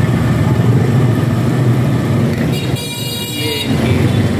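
Street traffic noise: a steady engine rumble, with a vehicle horn sounding for about a second near the three-second mark.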